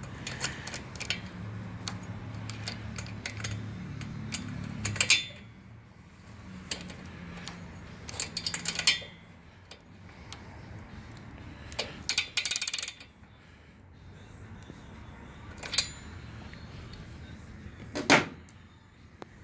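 Metal hand tools clicking and clinking against an aircraft engine's cylinder heads and spark plugs as a plug socket on an extension is fitted and worked. The clicks are scattered, with a cluster midway and a sharper clank near the end.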